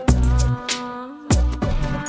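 Background hip-hop music with a heavy bass beat and electronic tones between rapped lines.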